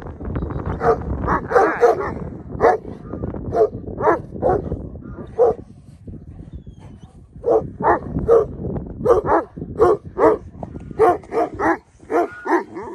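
Akbash/Great Pyrenees livestock guardian dogs barking repeatedly, with a short lull about halfway through. It is alarm barking at a raccoon on the fence post.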